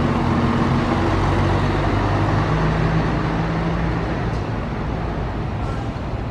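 Bus engine running with steady road and traffic noise; its low hum fades out about four seconds in and the overall sound slowly gets quieter.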